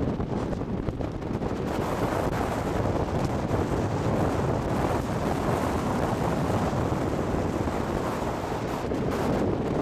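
Wind buffeting the microphone on a boat under way, with a steady rush of water and hull noise beneath it.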